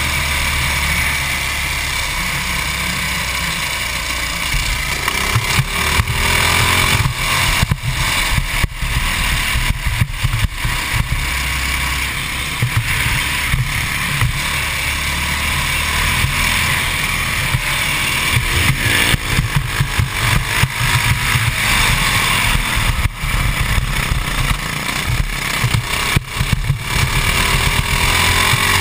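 Modified 196cc GX200-type single-cylinder four-stroke kart engine running hard at racing speed, heard from on board the kart, with gusty wind buffeting on the microphone.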